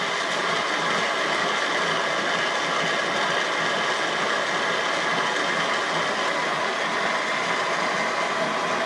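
Winona seat and guide machine's spindle running steadily while a PC cutter machines the top of a cast iron valve guide down to size for a metal-clad Viton valve seal.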